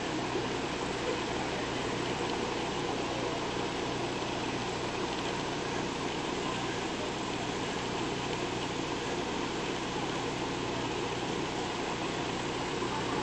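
Bus engine idling at the stop, a steady hum under street noise.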